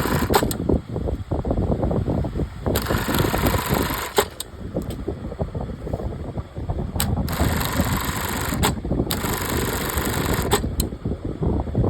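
Industrial single-needle lockstitch sewing machine running, with sharp clicks every couple of seconds.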